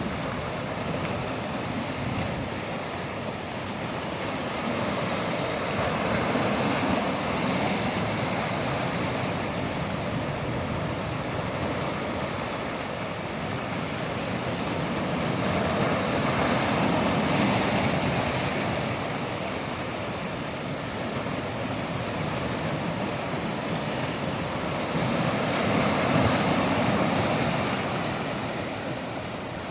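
Ocean surf: waves wash in and draw back in slow surges, each swell rising and fading over about ten seconds, three times.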